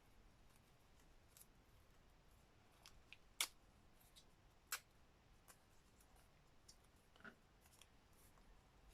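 Scissors snipping paper: a scattering of short, faint snips and clicks, with two sharper snips about three and a half and nearly five seconds in.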